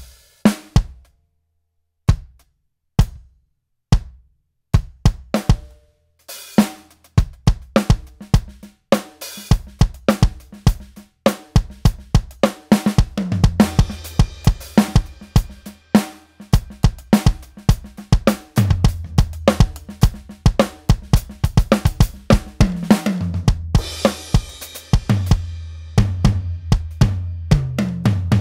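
Roland VAD706 electronic drum kit played through its sound module. It starts with single hits spaced about a second apart, then builds into fills and a full groove of bass drum, snare, toms, hi-hat and crashing cymbals, with a heavy cymbal wash about three-quarters of the way through.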